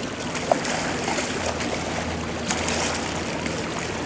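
Rescue boats' outboard engines running low at idle under a steady rush of water and wind noise, with one short sharp sound about half a second in.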